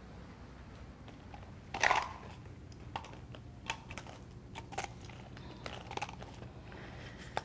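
Footsteps and small knocks on a hard floor, with one louder clatter about two seconds in, followed by scattered light clicks.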